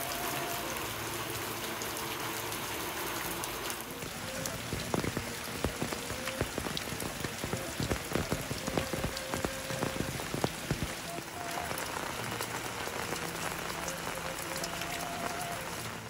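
Steady rain falling. From about five seconds in, a run of sharp drops knocking on a hard surface stands out over the rain for several seconds.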